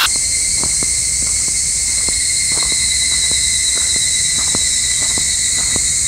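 A steady, high-pitched chorus of summer insects, with faint, irregular clicks of footsteps on a forest path.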